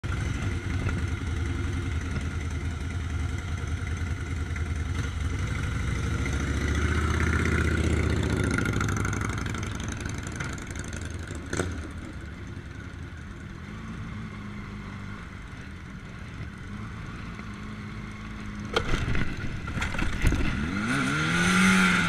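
Honda motorcycle engine running as the bike rides off, its revs rising and falling, with a couple of sharp clicks along the way. Near the end the revs climb and drop again as the forgotten disc lock on the front brake disc stops the wheel and the bike goes over.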